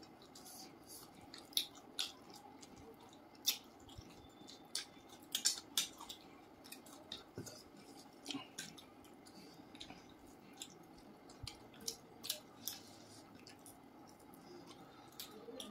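Two people eating rice, fried fish and curry by hand: irregular wet smacks and clicks of chewing and of fingers squishing and mixing rice on the plates.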